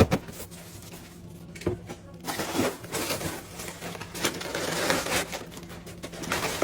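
Kitchen handling noises as a block of tuna is unwrapped and set out: a sharp knock at the start, scattered clicks, then a few seconds of rustling from about two seconds in.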